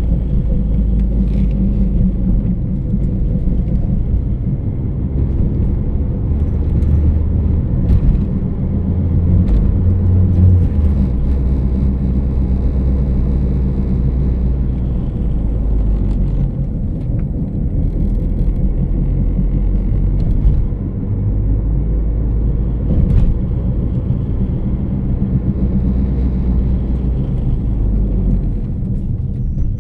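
A loud, steady low-pitched humming rumble that swells and eases over time, with a faint higher tone riding on it.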